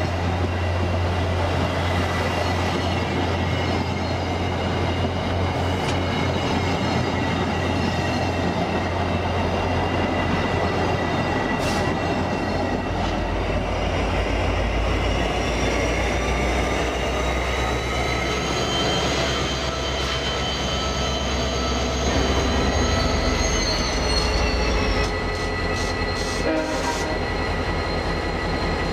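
VIA Rail F40PH-2 diesel passenger locomotives and their coaches, a steady low diesel drone that drops to a deeper pitch about halfway through as a locomotive comes alongside. A high whine rises and holds, then falls away about 25 s in, followed by a few sharp clicks.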